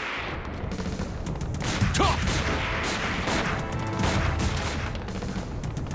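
Rapid volleys of gunfire from several guns, shots coming thick and fast, over a dramatic background music score.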